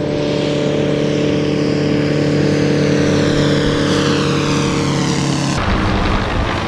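Small propeller aircraft engine droning steadily overhead at an even pitch, dropping away abruptly about five and a half seconds in.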